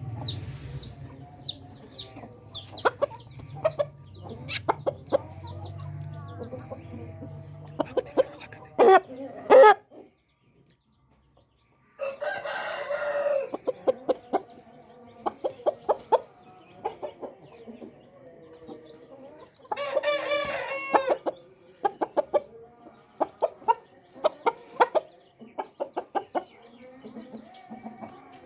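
Aseel chickens clucking in short repeated calls, with roosters crowing twice in long calls, once about twelve seconds in and again around twenty seconds. A low hum runs under the first eight seconds, and the sound cuts out completely for about two seconds before the twelve-second mark.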